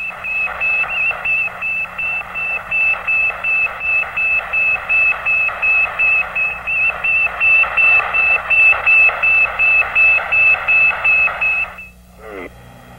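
Sputnik 1's radio signal received through a radio set: a high-pitched beep repeating about three times a second over receiver hiss. It stops near the end and is followed by a brief falling radio whistle.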